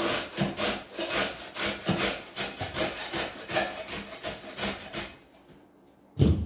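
A hacksaw sawing through one strand of a thick three-strand climbing rope, quick back-and-forth rasping strokes at about three a second. The strokes stop about five seconds in, and a single thump follows near the end.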